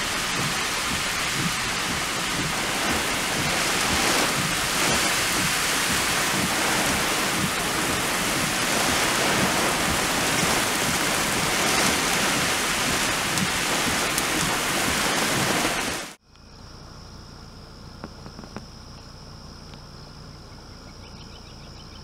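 Torrential wind-driven rain of a severe thunderstorm, a dense steady hiss. About 16 seconds in it cuts off abruptly to a much quieter evening outdoors, where insects trill steadily on one high note.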